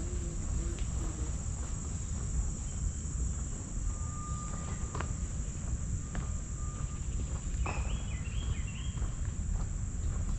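Steady high-pitched insect chorus, with a constant low rumble underneath and a few brief chirps about two-thirds of the way through.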